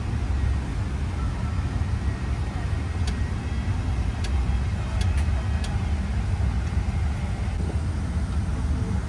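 Steady low rumble inside a Boeing 777-300ER cabin on the ground before takeoff, with a few faint light clicks around the middle.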